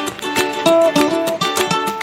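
Background music: a light tune of plucked string notes, guitar- or ukulele-like, in an even rhythm.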